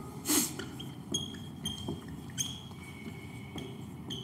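Whiteboard marker squeaking in short high strokes while drawing and writing, with small clicks between strokes. A short burst of noise about half a second in is the loudest sound.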